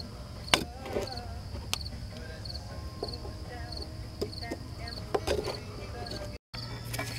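Torch flame burning with a steady low rumble and hiss while a steel pry bar clicks and scrapes against the metal sleeve of a seized suspension bushing. Short, regular high chirps run through the background. The sound cuts out briefly near the end, and a steady low hum follows.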